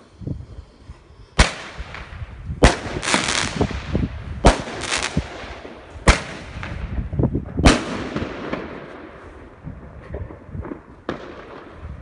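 Homemade firecracker cake of fused thunder-type bangers going off: about nine loud, sharp bangs over six or seven seconds, each followed by an echo, then a few lighter cracks near the end.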